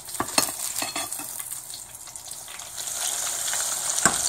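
Hot oil sizzling in a stainless saucepan as the next breaded rice ball (arancino) goes in to deep-fry; the sizzle swells about three seconds in. A few light clicks of a metal slotted spoon against the pot come early on and near the end.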